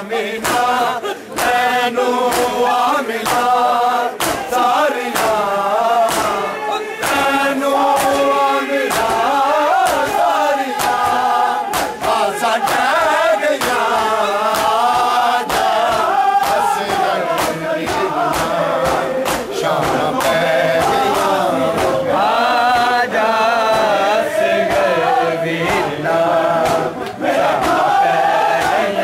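A crowd of men chanting a Punjabi noha, a Muharram mourning lament, in unison, with a steady rhythm of chest-beating (matam) slaps keeping time.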